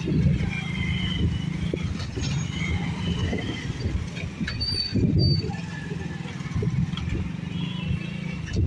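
Motorcycle and scooter engines running at low revs as road traffic crosses a level crossing: a steady low rumble that swells about five seconds in as one pulls away.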